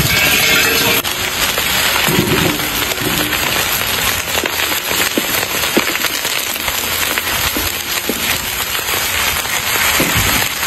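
Popcorn popping and crackling in a wide pan over a wood fire: many scattered sharp pops over a steady sizzling hiss.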